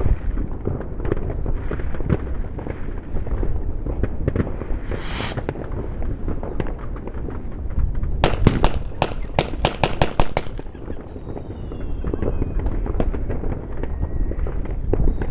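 New Year's fireworks and firecrackers going off all around in a dense, continuous crackle of bangs. About five seconds in there is a brief hiss, and from about eight to ten seconds a rapid run of a dozen or so sharp bangs, followed by a few faint falling whistles.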